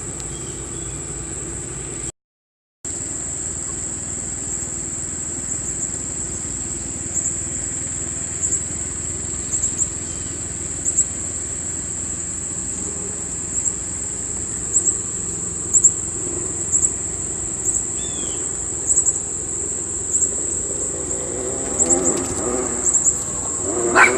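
Insects trilling steadily at a high pitch, with short louder chirps about once a second, over a low steady rumble. Near the end a dog starts to yip and whimper.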